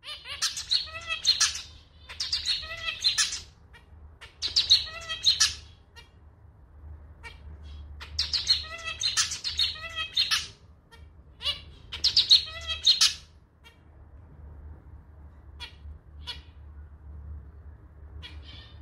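Male zebra finch singing its song in bouts of rhythmic, nasal notes that sound like a slightly out-of-tune little clarinet, with about five bouts in the first thirteen seconds and a few short single notes after that. A steady low hum runs underneath.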